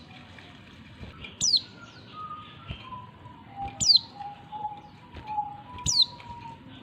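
Female oriental white-eye giving a sharp, steeply falling high call three times, about two seconds apart. Fainter, lower whistled notes sound in the background.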